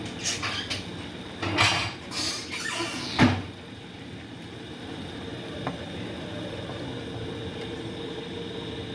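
Cookware being handled on a gas stove: a frying pan and its glass lid rattle and scrape, with a sharp clank about three seconds in. Then a steady low hum.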